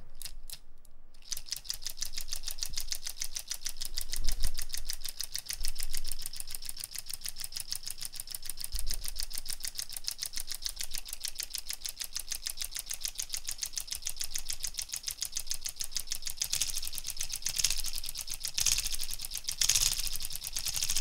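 3D-printed single-cylinder solenoid engine running: the solenoid plunger and its contact switch clicking in a fast, even clatter as the flywheel spins. It begins with a few slow strokes and picks up speed about a second in, with a couple of low thumps about four and six seconds in.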